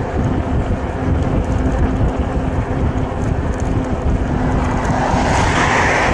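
Wind buffeting the microphone and tyre noise while riding a bicycle along a road, with a steady low hum underneath. About five seconds in, a car passes, rising in the mix.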